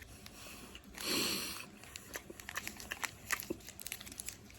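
Faint mouth sounds of a person chewing a piece of soft fudge, with small wet clicks and one brief breathy hum through the nose about a second in.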